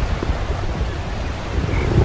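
Wind buffeting the microphone: a steady, gusty low rumble with a hiss over it.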